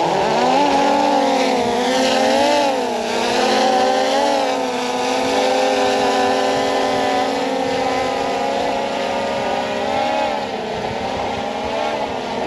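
DJI camera quadcopter's propellers whining as the drone spins up and lifts off. The pitch rises at first, then wavers up and down as it flies.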